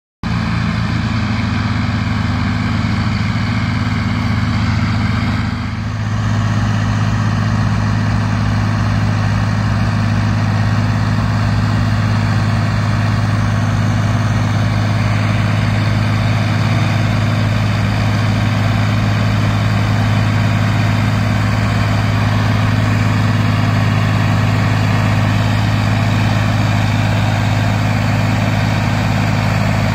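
Tractor diesel engine running steadily under load with a deep, even hum. The sound dips briefly and changes just before six seconds in, then carries on steady.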